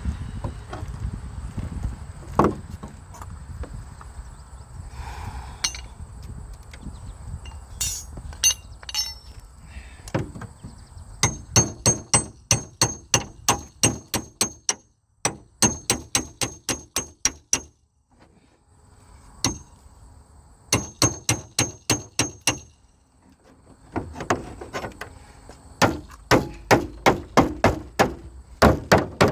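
Hammer blows on metal, in quick runs of about three strikes a second separated by short pauses, each strike ringing briefly.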